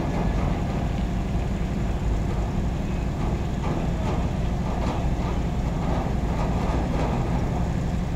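Heavy diesel engine running steadily with a deep low rumble, with a few light knocks in the middle.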